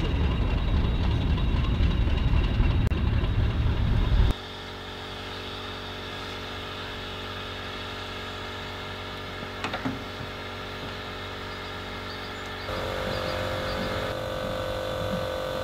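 A train's low rumble, cut off abruptly about four seconds in, then a steady machine hum with several held tones; a higher tone joins near the end.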